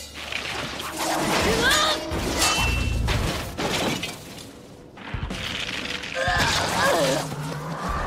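Anime fight sound effects: sudden crashing, shattering impacts of a sword clash, with a woman crying out twice in pain.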